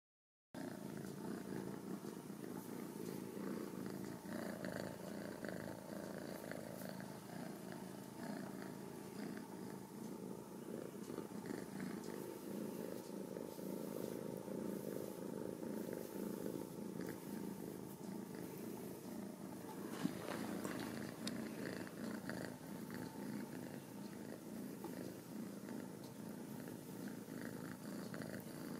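Ragdoll kitten purring steadily, close up. A single sharp click sounds about twenty seconds in.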